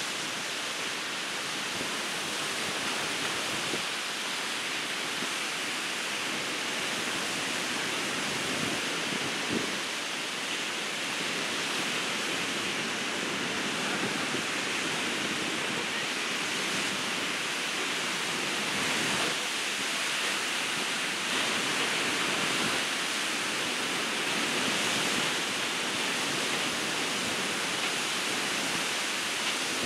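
Ocean surf breaking on a beach: a steady wash of noise that swells slightly now and then.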